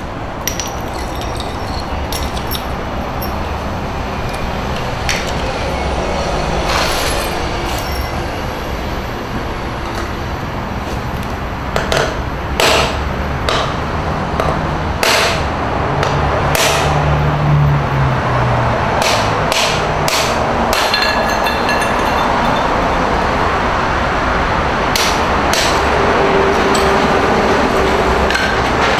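A hammer striking a porcelain sink, knocking and chipping pieces off the ceramic. About a dozen irregular sharp cracks, spaced seconds apart, over a steady background noise.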